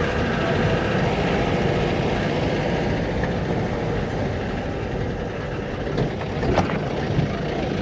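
A jeep's engine running as it drives along, with road noise throughout. A couple of sharp knocks come about six seconds in.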